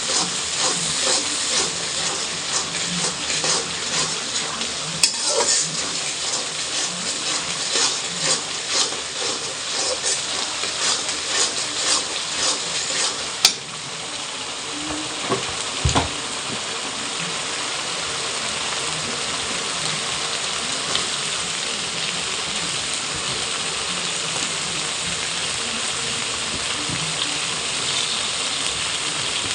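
Food sizzling in a frying pan while a spatula stirs and scrapes it in quick strokes. After a sharp knock about halfway, the stirring stops and an even sizzle carries on.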